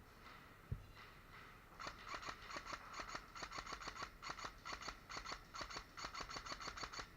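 Airsoft gun firing strings of shots: a rapid run of sharp clicks that starts about two seconds in and carries on in short bursts with brief gaps.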